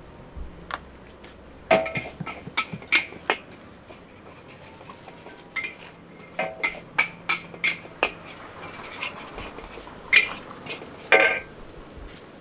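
Metal cooking utensils clanging against a pan: irregular clusters of sharp, ringing strikes, the loudest about ten and eleven seconds in.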